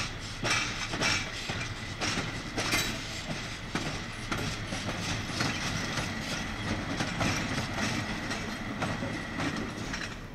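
EU07 electric locomotive's wheels clattering over rail joints and points as it rolls past, a run of irregular clacks over a steady rumble with a faint thin whine. The sound drops away near the end.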